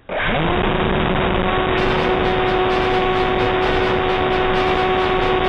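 Electric brushless motor and propeller of an FPV flying wing running steadily under power, a constant whine over wind rush, sounding dull as heard onboard. A music track with a steady beat comes in about two seconds in.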